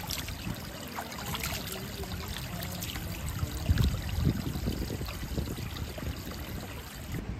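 Water from a hose pouring and splashing into a shallow stone trough. The splashing eases after about three seconds into water trickling and spilling over the trough's edge, with a few low rumbles about four seconds in.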